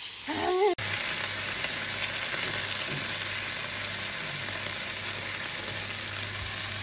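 Food frying in oil in a pan: a steady sizzle that begins abruptly just under a second in, with a faint low hum beneath it.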